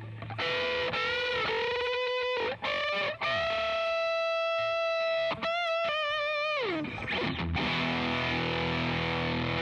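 Electric guitar through distortion and effects playing single lead notes with vibrato, holding one long note, then sliding down in pitch. About three quarters of the way through it moves into a sustained, ringing distorted chord.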